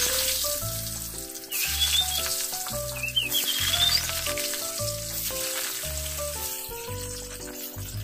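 Diced potatoes sizzling in hot frying oil, the sizzle easing near the end, under background music with a stepping melody over a regular bass pulse.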